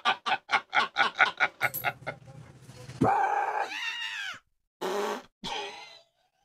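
A man laughing hard in quick, rhythmic bursts, fading out after about a second and a half. About three seconds in, a woman gives a loud, high-pitched startled yell, then two short cries.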